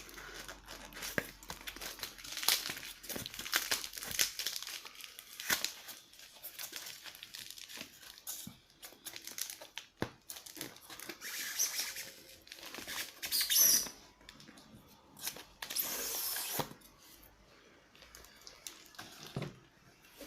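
Packaging being handled and torn open: irregular crinkling and tearing with scattered small clicks and knocks, loudest in two longer rustles past the middle.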